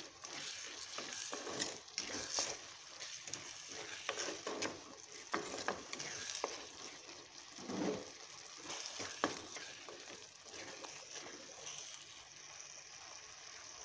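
Chopped tomatoes and spices sizzling in hot oil in a clay pot while a spatula stirs them, with scattered scrapes and light knocks of the spatula against the pot. The tomatoes are being sautéed down into a masala.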